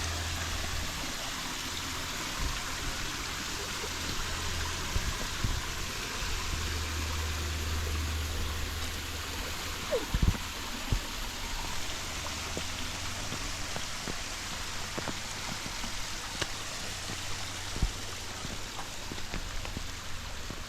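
Steady rushing of water in a bush creek. A few short knocks sound about ten seconds in and again near the end.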